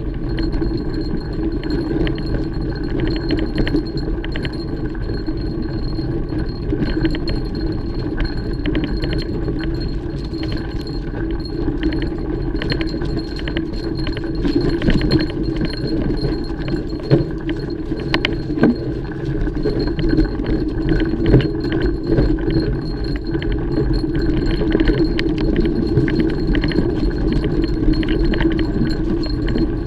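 Mountain bike being ridden on a trail: the tyres rumble over the ground while the chain and other parts clink and rattle over the bumps. There are frequent small rattles, with louder clatters in the second half.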